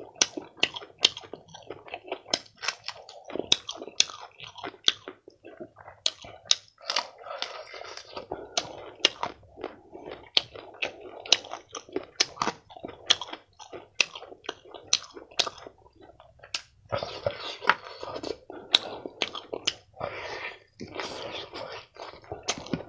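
A person chewing food close to the microphone, with frequent sharp wet mouth clicks and smacks between stretches of chewing.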